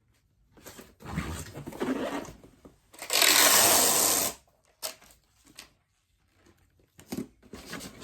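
Packing tape pulled off the roll with a loud screeching rip lasting just over a second, about halfway through, and pressed onto a cardboard shipping box, with rustling and handling before and a few light taps after.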